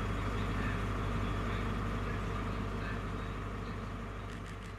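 Class 43 HST power car's diesel engine idling steadily as the train stands at the platform, a low drone. A few short sharp clicks near the end.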